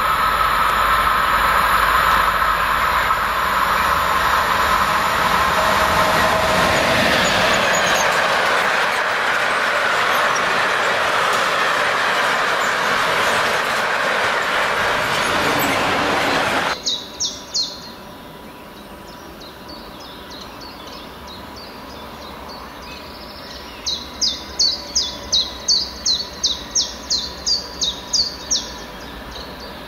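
A freight train of covered sliding-wall wagons, hauled by an electric locomotive, passing close by: a loud, steady rumble of wheels on rail that cuts off suddenly about seventeen seconds in. After that it is much quieter, and a bird gives a few short high chirps, then a quick run of about a dozen chirps near the end.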